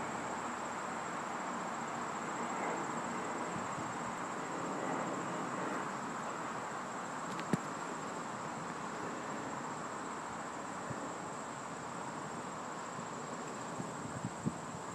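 Outdoor background of a steady, high-pitched insect trill over a steady low hiss, with a single sharp click about halfway through and a few faint ticks near the end.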